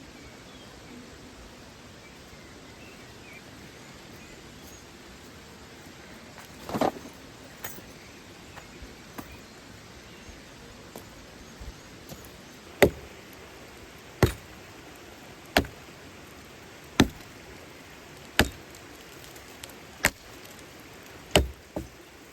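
Steady hiss of flowing water, with a louder knock about a third of the way in, then seven sharp strikes at an even pace, about one every second and a half, in the second half.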